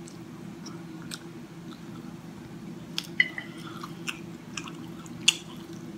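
Close-up chewing and small mouth sounds of someone eating, with a few sharp clicks of a fork against a china plate, over a steady low hum.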